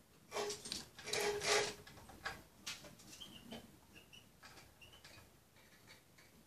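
Small finch pecking food from a glass bowl: a run of quick beak taps and rattles against the glass, loudest in the first two seconds, then sparser single taps.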